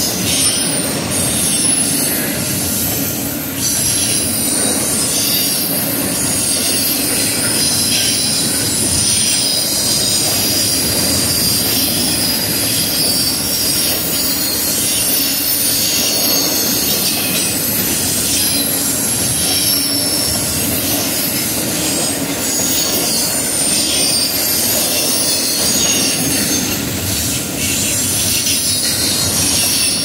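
Intermodal freight train cars rolling past: a steady, loud rumble of wheels on rail, with high-pitched wheel squeal running over it.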